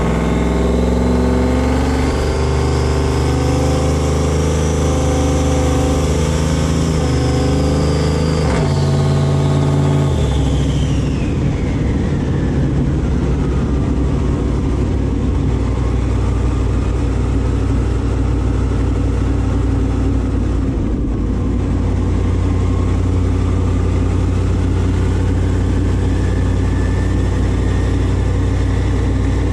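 Ram 1500's Hemi V8 running with its rear-mounted turbocharger whistling. The high whine climbs to a peak about five seconds in, falls away over the next ten seconds, and rises gently again near the end. The engine note changes in steps during the first ten seconds, then settles and holds steady.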